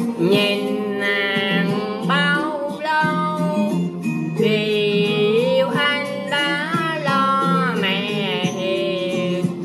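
A man singing a Vietnamese cải lương hồ quảng tune in a high voice, with long wavering held notes and sliding pitch. Instrumental backing plays under him.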